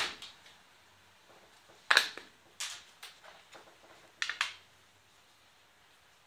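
The plastic back cover of a Nokia Lumia 635 being pried off, with a series of sharp clicks and snaps as the clips let go. The loudest snap comes about two seconds in, and the last ones come at about four and a half seconds.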